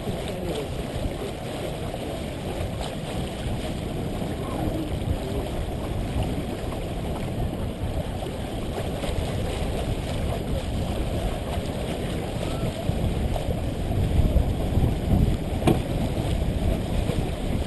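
Wind buffeting the microphone over water rushing along the hull of a sailboat under way, a steady rushing that grows gustier about fourteen seconds in.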